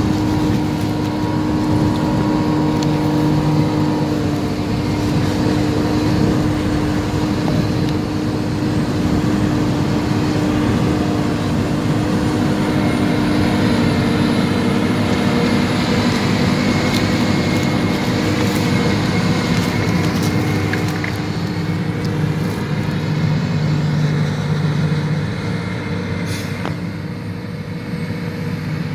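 Versatile RSM 1403 self-propelled forage harvester chopping maize and blowing it into a silage wagon, with a John Deere 6520 tractor running alongside. A steady, loud mechanical drone at a constant pitch, easing off a little near the end as the machines pull away.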